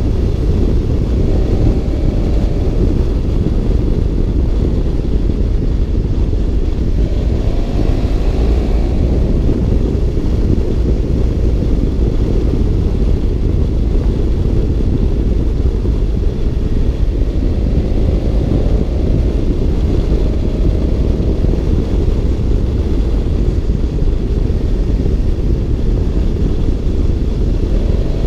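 BMW F650 GS Twin's parallel-twin engine running under way, its note slowly rising and falling with the revs a few times, beneath a heavy, steady rumble of wind and road on the microphone.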